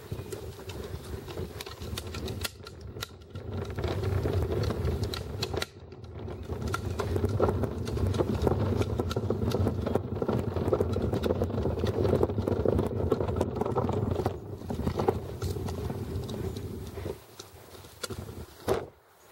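Footsteps and rustling handling noise from a person walking while carrying a handheld camera, with many small knocks and scuffs; it eases off about three seconds before the end.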